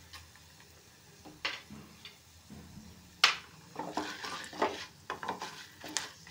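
A wooden spatula stirs lentils and spices roasting in a metal pan: chana dal, urad dal, fenugreek and dried red chillies. There are a couple of faint taps, then a sharp knock about three seconds in, followed by quick scraping and rattling of the grains against the pan.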